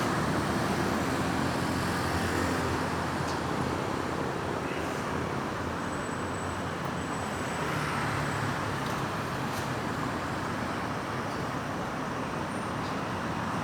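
Steady road traffic noise of vehicles passing, with no siren sounding.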